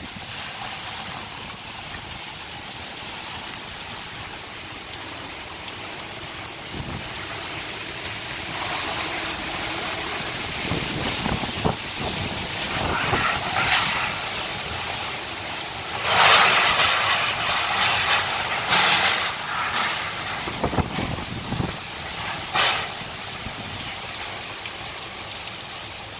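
Hurricane wind blowing in gusts and buffeting the microphone, with the strongest gusts in the second half.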